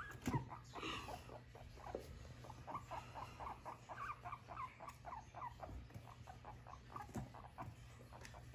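Long-haired guinea pig squeaking in a quick run of short calls, about four a second, with a few sharp clicks.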